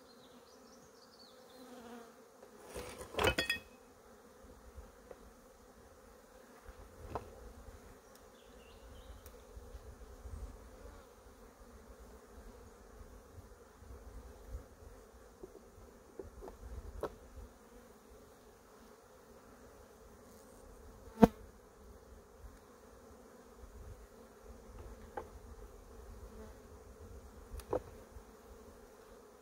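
Honeybees buzzing steadily, with a few sharp knocks and clicks scattered through, the loudest about two-thirds of the way in.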